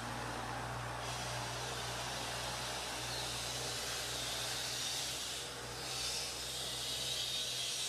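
Steady outdoor hiss with a low hum underneath, dipping briefly about five and a half seconds in.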